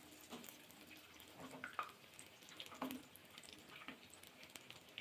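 Faint sizzling of batter-coated bitter gourd rings deep-frying in hot oil, with scattered pops and light clicks as a metal spatula turns the rings over.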